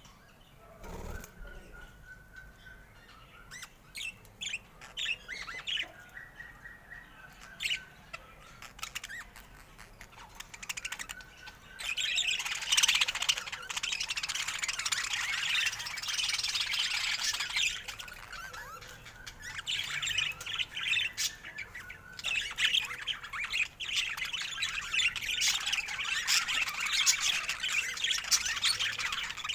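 Budgerigar calls: scattered short chirps at first, then from about twelve seconds in a dense, continuous high chattering warble with squawks.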